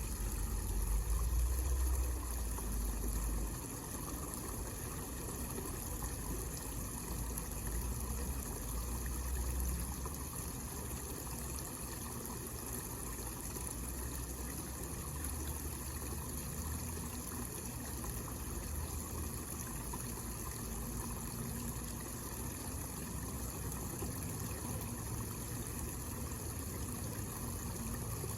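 Water falling steadily from a small homemade waterfall into a basin, with a low rumble underneath that is strongest in the first few seconds.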